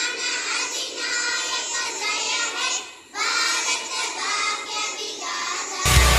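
A group of children singing together, with a brief pause about halfway through. Near the end, loud music with heavy bass abruptly cuts in.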